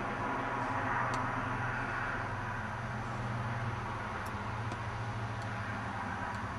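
Steady background hum and hiss, with a low drone underneath and a few faint ticks.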